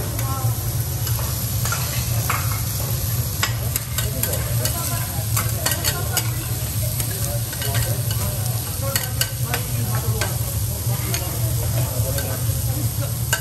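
Salmon, shrimp, chicken and beef frying with a steady sizzle on a steel teppanyaki griddle. Metal spatulas scrape and clink against the plate in many short, irregular strikes, over a steady low hum.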